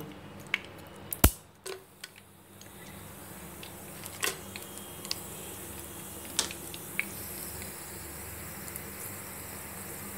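Whole spices (cinnamon and cardamom pods) frying in hot oil in a pan: a sharp knock about a second in, then a soft steady sizzle that slowly builds, with a few pops.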